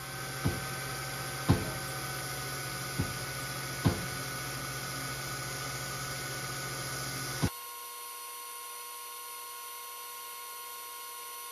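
Small electric air-assist pump running with a steady hum and a hiss of air, broken by several sharp clicks. About seven and a half seconds in, the hum and hiss stop at once, leaving a fainter steady whine.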